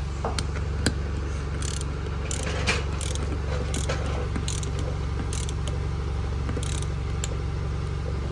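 Click-type torque wrench set at 14 pounds tightening the bolts of a beadlock rim's ring, giving more than a dozen short, sharp clicks at irregular intervals over a steady low hum.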